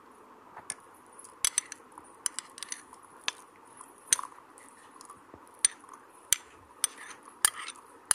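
A metal spoon clinking and scraping against a glass bowl and a steel tumbler as chopped onion is pushed into raw eggs. The clicks are sharp and irregular, over a faint steady hum.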